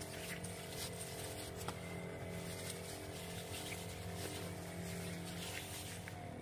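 Knapsack power sprayer's pump running with a steady hum during spraying, cutting out briefly near the end and starting again.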